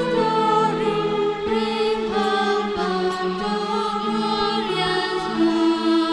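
A group of voices singing a devotional, chant-like melody together over live band accompaniment, held notes changing about once a second.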